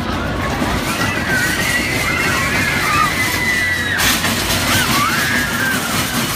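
Children squealing on a small dragon kiddie roller coaster, high wavering cries that rise and fall over steady fairground noise. From about four seconds in the coaster's cars rattle past close by.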